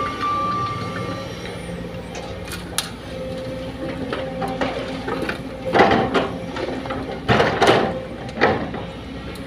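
Sumitomo hydraulic excavator's diesel engine running steadily under load. Loud clattering crashes come from about six seconds in, as soil and stones are dumped from its bucket into a steel dump truck bed.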